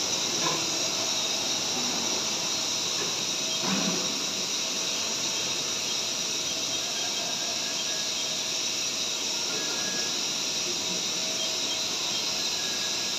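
Haas Super VF-3YT CNC vertical machining center running: a steady hiss with faint, even high-pitched tones throughout.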